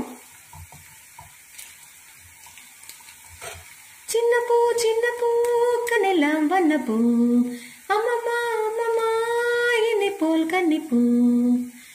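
Potato fingers deep-frying in hot oil in a kadai, a soft sizzle with a few faint clicks of a metal slotted spatula stirring them. About four seconds in, a woman starts humming a slow tune in long held notes, much louder than the frying.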